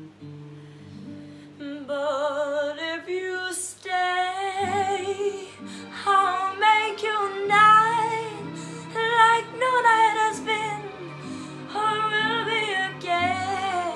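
A young girl singing a slow, melancholy ballad with vibrato over a soft instrumental accompaniment; the singing comes in about two seconds in, after a few held accompaniment notes.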